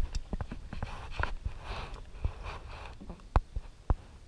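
Kayak paddling: paddle strokes swishing through calm water with scattered drips and small knocks, mixed with the rustling of a GoPro pole tucked inside a life jacket. Two sharp clicks come near the end.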